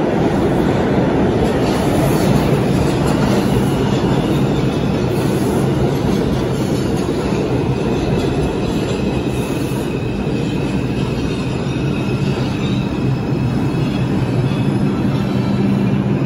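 New York City R142 subway train pulling out of an underground station: a loud, steady rumble of steel wheels on rail under a low motor hum, with a thin, high wheel squeal coming in about ten seconds in.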